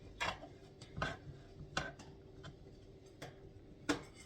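Knife chopping vegetables on a cutting board, about six separate strokes roughly every three-quarters of a second.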